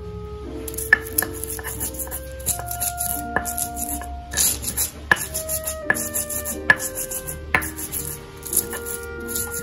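Stone pestle crushing and grinding chilies in a volcanic-stone mortar (cobek and ulekan): irregular sharp stone-on-stone knocks with short grinding scrapes between them. Background music with a melody plays underneath.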